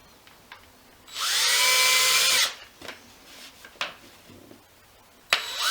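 Power drill driving a screw into a dowel: one run of about a second and a half with the motor whine rising, holding and falling, a few light clicks, then a second run starting near the end.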